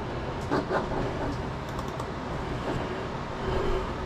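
A few short clicks of a computer mouse working a security camera recorder's on-screen menu, over a steady low hum.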